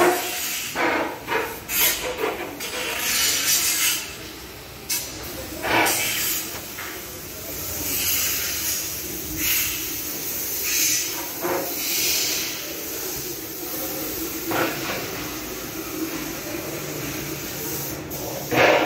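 Bus body workshop noise: a steady hiss with rubbing and scraping, broken by several sudden knocks and clatters of tools and panels, the loudest near the end.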